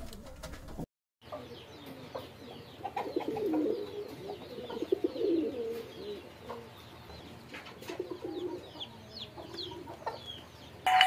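Pigeons cooing, low rolling coos coming mostly in the middle, with small birds chirping over them.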